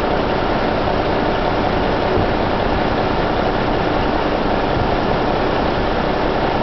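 A crane's heavy engine running steadily while it hoists a steel frame on its slings.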